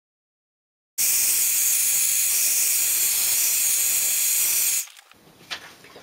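Hairdryer blowing a steady, loud rush of air over a wet watercolour wash to dry it. The sound starts abruptly about a second in and stops shortly before the end, leaving a few faint clicks.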